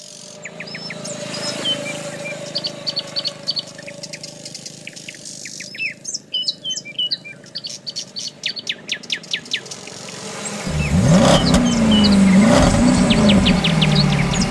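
Birds chirping over a steady low background hum. About ten seconds in, a go-kart engine comes in loud, its pitch rising and falling as it revs.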